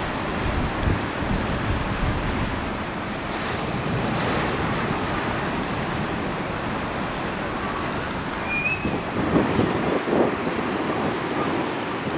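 Strong wind buffeting the microphone over choppy water, with waves splashing and breaking. The gusts grow stronger in the last few seconds.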